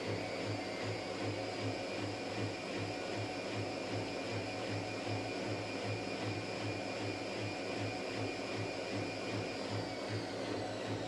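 Whirlpool AWS 71200 front-loading washing machine in a mid-cycle spin burst, its drum spinning to throw out rinse water. There is a steady motor whine over a low hum that pulses about three to four times a second, and the whine drops slightly in pitch near the end.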